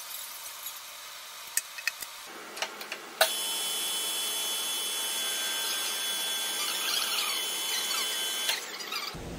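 Metal lathe: a few sharp clicks as the nylon plug is secured in the collet, then about three seconds in the spindle starts with a clunk and runs at 800 RPM with a steady, high-pitched whine while the tool faces the end of the nylon plug. The lathe stops shortly before the end.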